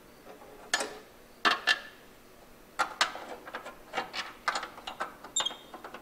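Metal clinks and taps of a caster/camber plate being fitted up over the strut's top studs against the strut tower: a few sharp knocks in the first three seconds, then a quicker run of small clicks.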